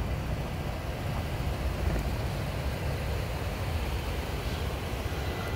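A steady low rumble of outdoor background noise, with no distinct single sound standing out.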